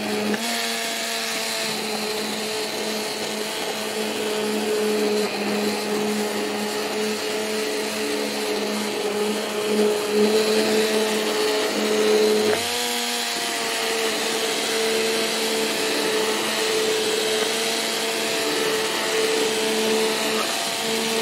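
Hand-held immersion (stick) blender running steadily in a pot, puréeing a potato and lettuce soup. Its motor hum shifts briefly in pitch about twelve seconds in.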